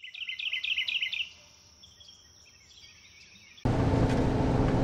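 A bird singing a quick run of about eight chirps, followed by fainter bird calls. About three and a half seconds in, a steady, louder drone of vehicle driving noise with a low hum starts suddenly.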